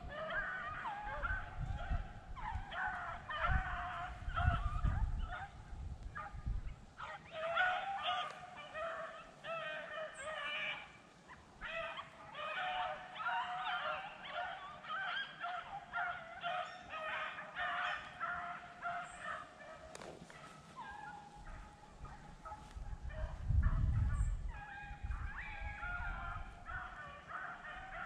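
A pack of rabbit beagles baying on a rabbit's trail, many voices overlapping in a steady run of calls, which tells that the dogs are on the scent. A few low rumbles on the microphone, the loudest about two-thirds of the way through.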